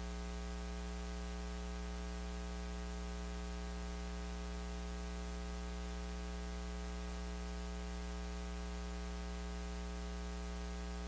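Steady electrical mains hum with a faint hiss over it, unchanging, with no other sound.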